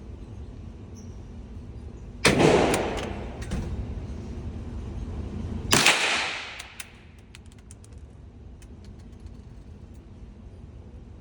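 Two shots from a bolt-action .22 LR rifle, about three and a half seconds apart, each trailing off in a short echo.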